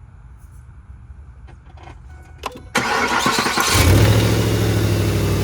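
A few faint clicks, then a Ford 4.6-litre V8 cranks on the starter and catches about three seconds in, settling into a steady idle. It runs smoothly, with the misfire gone after the coil was refitted.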